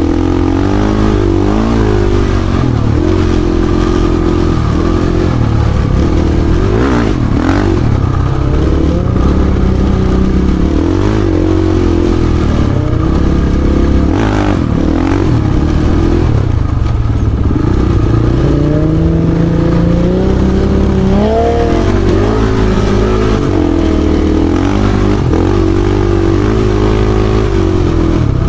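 Dirt bike engine running continuously under load, its pitch rising and falling as the throttle opens and closes.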